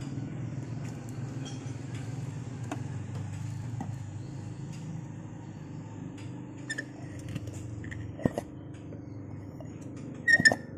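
Small clicks and taps of a metal vacuum canister being handled, with a sharp metal clink about eight seconds in and a louder double clink near the end, over a steady low engine hum.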